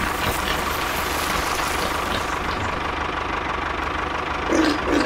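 A homemade mini model tractor runs with a steady engine-like drone as it drives through wet sand and mud. Near the end there are a few short pitched calls.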